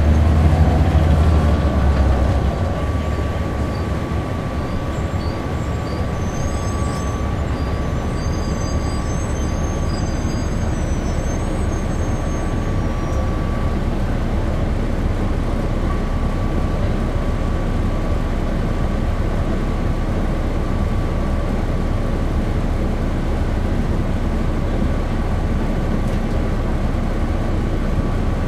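Inside a 1996 Nova Bus RTS transit bus, its Cummins C8.3 six-cylinder diesel engine and ZF Ecomat automatic transmission running. A louder low rumble for the first two seconds or so settles into an even drone, with a faint steady whine above it.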